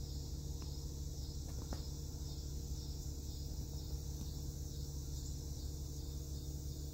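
Insects chirring in a steady, high, shimmering chorus, over a low steady hum.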